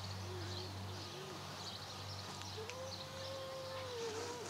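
Rural outdoor ambience: faint bird chirps over a low steady hum, with short wavering calls early on and one long drawn-out call, rising then falling, held for about two seconds in the second half.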